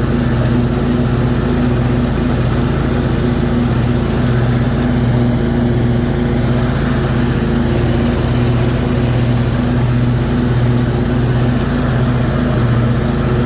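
Cub Cadet Z-Force zero-turn mower's Kohler 22 horsepower engine running steadily, with the 48-inch deck's blades engaged and cutting through taller grass.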